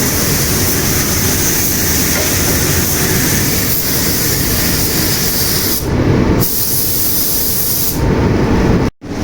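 Steady, loud spraying hiss. Its tone shifts abruptly about six and eight seconds in, and it drops out briefly just before the end.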